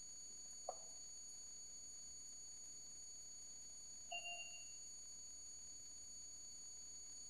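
Faint room tone with a steady high-pitched whine, a light click under a second in, and a short ringing tap about four seconds in.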